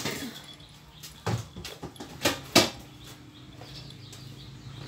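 Several cats eating from a plastic bowl: a few short, sharp clicks and rustles of chewing and of the bowl being nudged, the loudest about two and a half seconds in. A faint low hum comes in about halfway.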